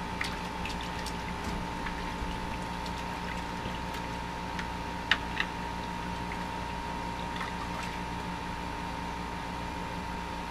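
Water trickling and splashing at an ice-fishing hole, with scattered light clicks and two sharp knocks close together about halfway through, over a steady hum.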